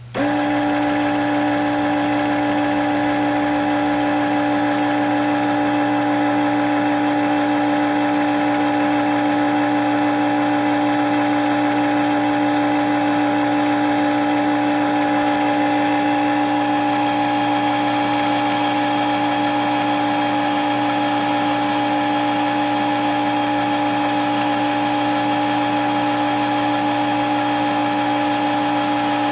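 Brother sewing machine's motor starting up and running at a steady speed with a steady whine, driving the bobbin winder as the bobbin fills with thread.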